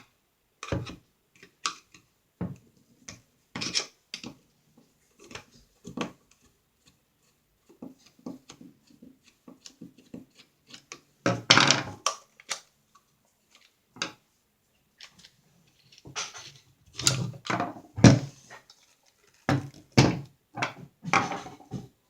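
Parts of a metric FN FAL lower receiver being worked apart by hand: irregular clicks, taps and knocks of metal and tools, with a denser clatter about eleven seconds in and a run of louder knocks over the last five seconds.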